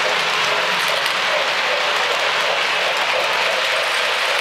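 O-gauge model trains, K-Line trains on Lionel FasTrack, running around the layout: a steady rushing rattle of wheels rolling on the three-rail track.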